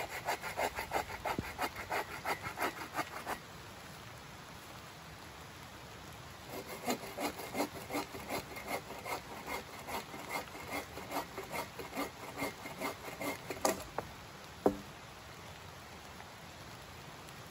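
Hand saw cutting wood in two bouts of quick back-and-forth strokes, about four a second, with a pause of about three seconds between them. Two sharp knocks follow near the end, the second the loudest sound.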